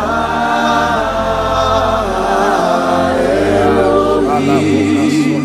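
Congregation and worship singers singing together in long, held notes that glide slowly between pitches, voices to the fore over a low held bass tone that changes note a few times.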